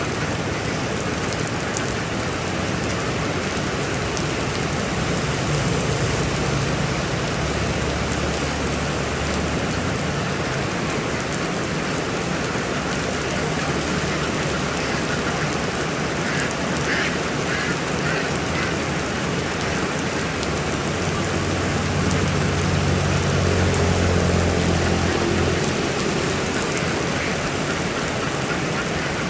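Heavy rain falling steadily, with a low hum that swells twice, about a quarter of the way in and again near the end.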